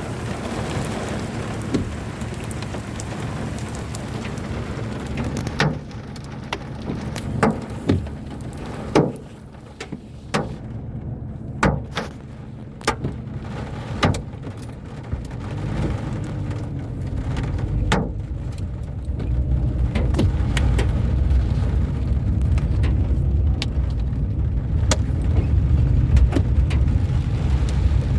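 Car driving in rain: a steady low engine and tyre rumble, with sharp separate ticks of raindrops striking the car every second or so through the middle stretch. The rumble grows louder about two-thirds of the way through.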